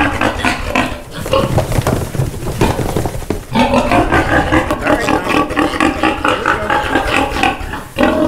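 Freshly castrated piglets squealing loudly and almost without pause as they are handled, with short breaks about a second in, near the middle and near the end.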